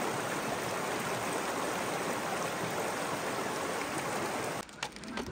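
Shallow mountain stream rushing over stones in a steady, even rush of water. It cuts off sharply near the end.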